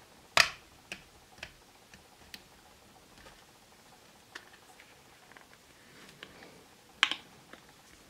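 Scattered light clicks and taps of fingers handling an iPhone 6 Plus as its display assembly is seated into the frame at the top notches, with a sharper click about half a second in and another near the end.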